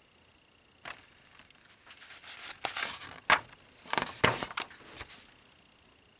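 Handling noise of a model kit's instruction booklet: paper crinkling and rustling in a run of bursts, with a couple of sharp snaps in the middle.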